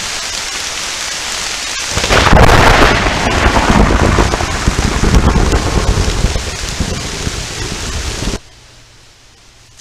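Steady heavy rain falling on forest foliage. About two seconds in, a loud thunderclap breaks in and rumbles on for several seconds over the rain. Near the end the sound stops abruptly, leaving only a faint low hum.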